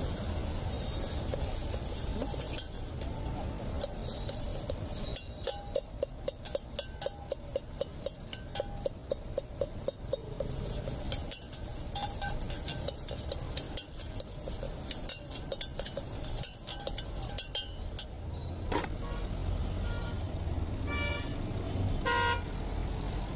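A metal ladle clinking against a stainless steel tin while puffed rice is mixed in it, a quick even run of ringing strikes, about three a second, for several seconds, then a few scattered clinks. Street traffic runs underneath, and a vehicle horn honks twice near the end.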